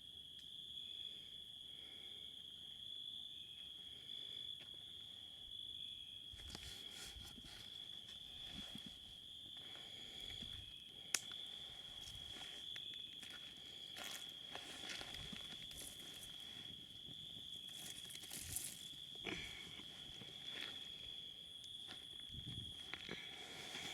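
Campfire crackling with scattered small pops from about six seconds in, one sharp pop near the middle standing out, over a steady high insect trill.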